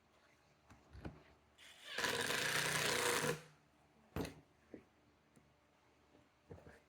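Small power driver running a T20 Torx screw into the steering wheel's plastic back cover for about a second and a half, with a few short clicks and knocks of handling before and after.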